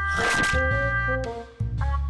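Upbeat jazzy background music with horns, and a short noise about a quarter second in.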